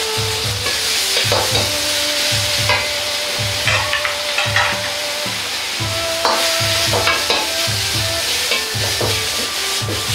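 Pork and vegetables sizzling as they are stir-fried in a hot wok over a gas flame, with a metal ladle scraping and clanking against the wok's sides.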